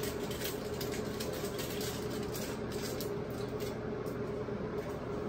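Steady room hum with scattered faint rustles and light clicks of hands handling a small wig comb and working it into the hair under a cap.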